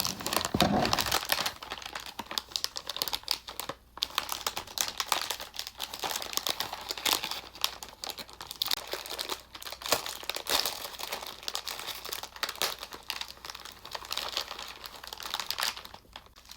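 Plastic wrapper of a pack of Oreo cookies crinkling and tearing as it is handled and opened: a dense crackle with a short break about four seconds in.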